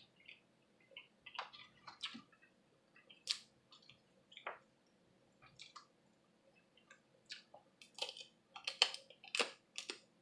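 Close-miked eating sounds: chewing, with scattered wet smacks and clicks as snow crab meat is eaten from the leg. The clicks come thicker near the end.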